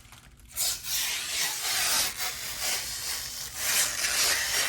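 Protective plastic film being peeled off a new PC case panel: a rasping, uneven peel that starts about half a second in.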